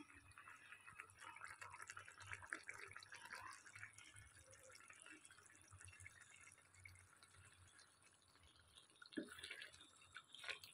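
Faint bubbling and sizzling of a potato and aubergine curry simmering in a kadai, a fine crackle of tiny pops. A couple of soft knocks come near the end.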